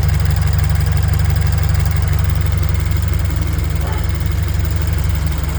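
Toyota 86's flat-four boxer engine idling steadily with an even, rapid pulse, listened to by its owner, who questions whether it has rod knock.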